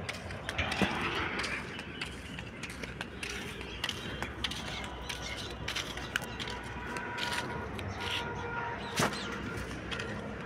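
Footsteps scuffing on a sandy, gritty track, with scattered clicks from the phone being handled, over a low steady outdoor rumble; a few short, faint, steady tones sound in the second half.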